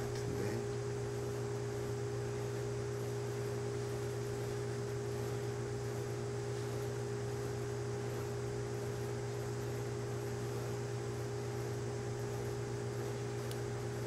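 Steady hum in several fixed pitches over a faint hiss: background room tone.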